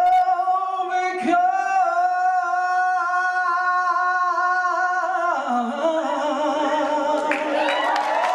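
A woman singing live into a microphone, belting one long held note for about five seconds with a short break about a second in, then dropping lower into a wavering run as the song ends.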